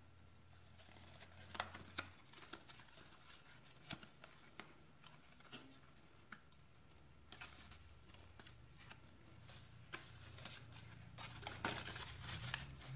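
Folded cardstock of a paper lantern handled and pressed together by hand: faint paper rustling and crinkling with scattered small clicks, growing busier near the end.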